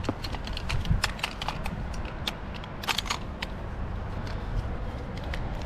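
Scattered sharp clicks and knocks at an irregular pace over a steady low rumble.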